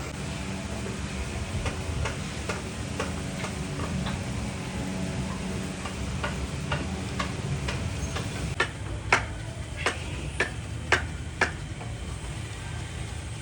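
A series of sharp taps, about two a second at first, then a handful of louder ones spaced about half a second apart later on, over a steady low hum.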